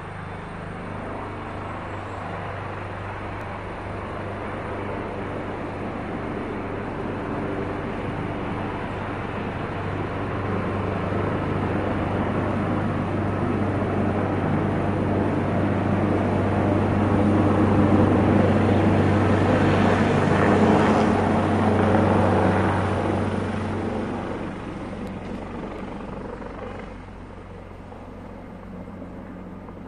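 Helicopter flying over, its noisy, steady low rotor drone growing louder to a peak about two-thirds of the way through, then fading.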